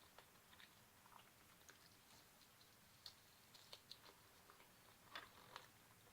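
Faint chewing of glazed chicken: soft mouth smacks and small wet clicks, with a few sharper clicks in the second half.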